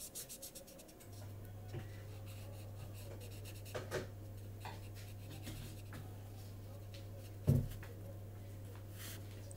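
Marker pen scribbling on paper in quick back-and-forth colouring strokes for about the first second. A steady low hum then sets in, with a few soft taps and one louder thump about three quarters of the way through.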